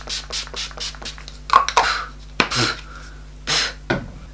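Pump-mist setting spray bottle (Urban Decay All Nighter) being spritzed at the face in quick pumps, about four a second, that stop about a second in. A few separate louder noises follow.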